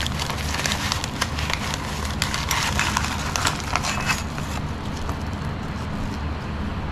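Rustling and clicking of a camping stove's carry pouch and packaging being handled. The noise is dense for the first four seconds, then eases off, over a steady low hum.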